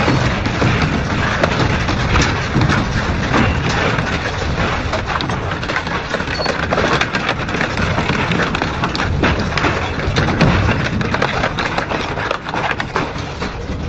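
Double-shaft industrial shredder chewing through metal scrap: a continuous loud grinding crunch, broken by many sharp cracks and bangs.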